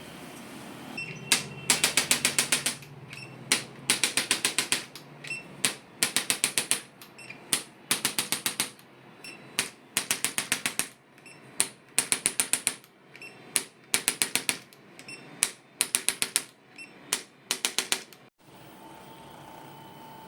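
Handheld chiropractic adjusting instrument firing quick runs of sharp mechanical clicks, about six to eight clicks per run, each run usually led by a single click and repeated about every two seconds as it taps along the patient's back. The clicking stops near the end.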